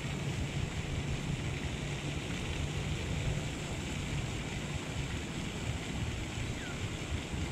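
Wind buffeting the microphone of a head-mounted action camera: a steady, unsteadily fluctuating low noise.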